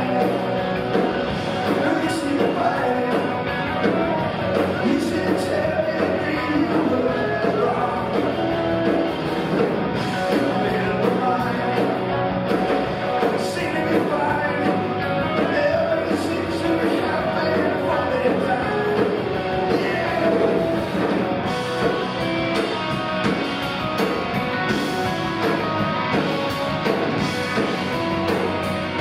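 Live rock band playing: electric guitars and bass guitar over drums, loud and continuous.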